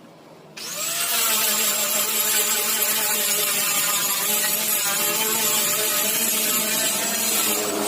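Handheld electric power tool starting up about half a second in, its motor whining up to speed, then running steadily and loud.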